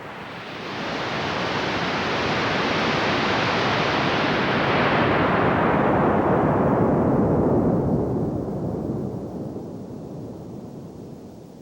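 A long rushing noise with no tone in it, swelling over the first couple of seconds, then growing duller as its high part fades, and dying away near the end.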